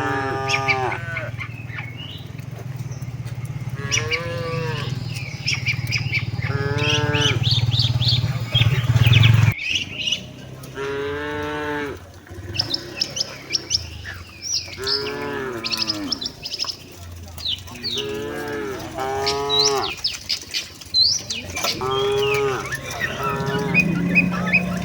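Domestic cattle in a herd mooing repeatedly, about nine separate long moos from more than one animal, with small birds chirping above them. A steady low hum runs under the first third and cuts off abruptly.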